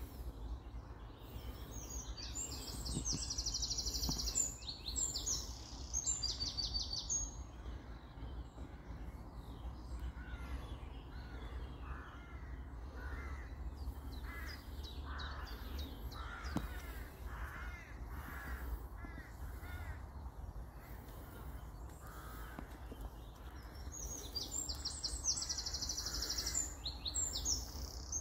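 Outdoor birdsong: a songbird sings fast, high trilling phrases a couple of seconds in and again near the end. Through the middle comes a run of lower, repeated cawing calls, over a steady low rumble.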